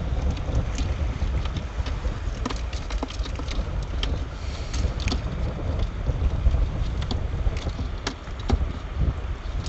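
Wind buffeting the microphone with a steady low rumble, over irregular light clicks, taps and rustles from handling a crab net and crabs over a plastic cooler.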